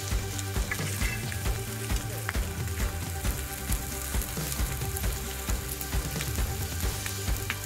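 Bacon, sausages and sausage patties sizzling on a hot charcoal-fired griddle, with many small crackles and the scrape and tap of a metal spatula turning the sausages.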